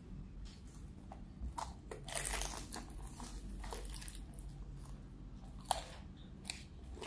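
Crunchy bites into and chewing of a fried tortilla-wrapped egg roll. The densest crunching comes about two seconds in, and a single sharp crunch near six seconds is the loudest.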